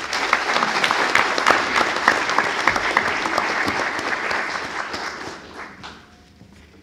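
Audience applauding, dense hand-clapping that fades away about six seconds in.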